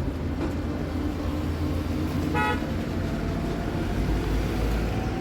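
Road traffic with engines running steadily, and one short vehicle horn toot about halfway through.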